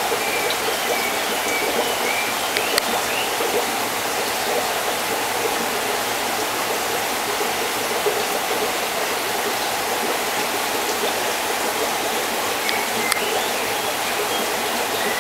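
Steady rushing and splashing of water from an aquarium's filter return, with a few faint clicks.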